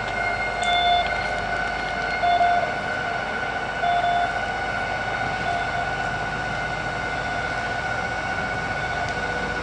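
Small diesel shunting locomotive moving a string of cement tank wagons slowly, its engine running under steady high-pitched tones. For the first half a louder tone pulses briefly about every second and a half, then fades away.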